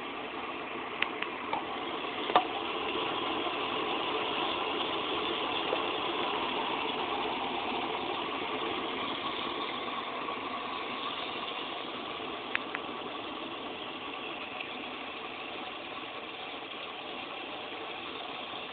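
Class 6 kg washing machine running a super-quick wash programme with a small load: a steady motor and churning noise, with a few sharp clicks about a second in, near two and a half seconds, and again about twelve and a half seconds in.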